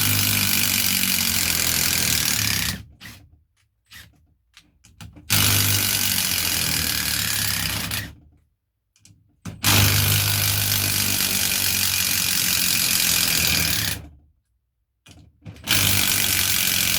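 Makita brushless impact driver hammering as it backs 8 mm by 120 mm coach screws out of oak, one screw per run. There are three long runs of a few seconds each with short pauses between, and a fourth run starts near the end.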